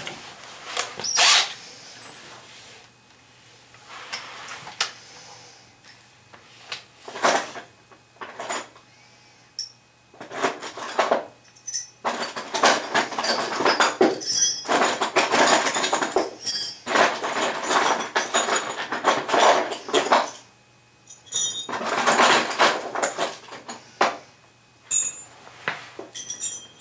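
Hand work on a toilet flange: irregular bursts of scraping and rasping mixed with sharp clicks and metal clinks, and a longer run of steady scraping about halfway through.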